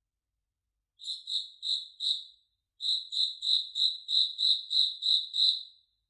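Cricket chirping: a high-pitched, evenly spaced chirp repeated about three times a second. There are four chirps about a second in, a short pause, then about ten more before it stops.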